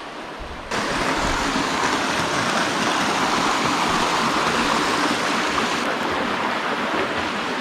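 Small waterfall, with its water running and splashing in a steady rush. The rush comes in suddenly about a second in, loud and even.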